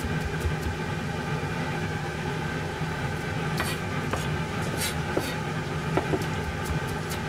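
Kitchen knife mincing garlic on a plastic cutting board: scattered taps and scrapes of the blade, over a steady hum.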